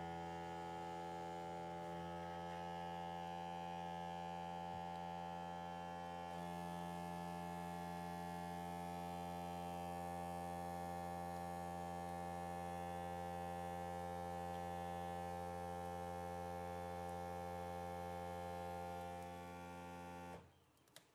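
Vaquform DT2 vacuum former's vacuum pump running with a steady hum, holding the heated plastic sheet drawn down over the mould. It cuts off suddenly near the end.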